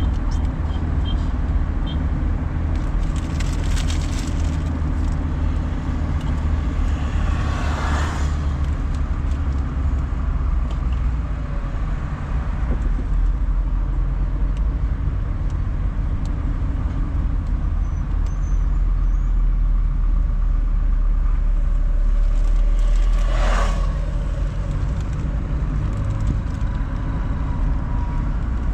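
Car cabin ambience while driving: a steady low hum of engine and road noise, with three brief whooshes, at about 4, 8 and 23 seconds in.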